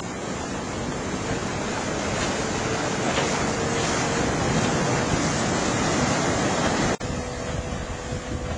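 Wind buffeting the microphone over choppy water, with the steady drone of a Tohatsu 70 hp two-stroke outboard faintly underneath. The sound cuts abruptly about seven seconds in, and after that the outboard's note stands out more clearly against the wind.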